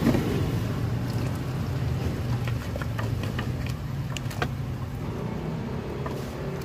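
A steel ladle clinking a few times against a large steel cooking pot as the broth is stirred, about two to four and a half seconds in, over a steady low mechanical hum.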